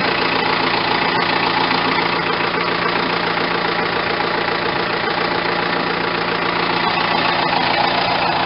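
Tractor engine idling steadily at an even pitch.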